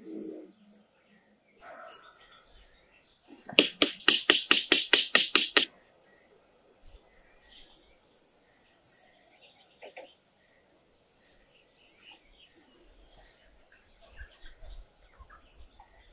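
A quick, even run of about a dozen sharp knocks, about five a second, lasting roughly two seconds, over a steady high drone of insects.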